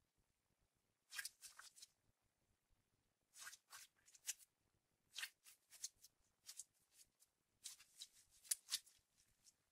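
Glossy glitter slime squeezed and kneaded in a hand, giving bunches of quick, sticky clicks and crackles. There are four bunches: about a second in, around the middle, and two more running into the end.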